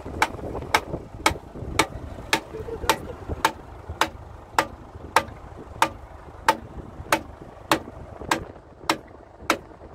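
Steady hammering: about eighteen sharp blows, a little under two a second, spacing out slightly towards the end, over a low background rumble.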